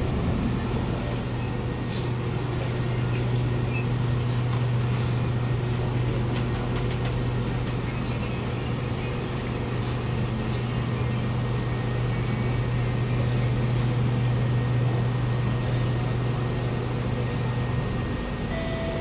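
Steady low hum from a stationary Kawasaki Nippon Sharyo C751B metro train standing with its doors open. The hum drops away about a second before the end.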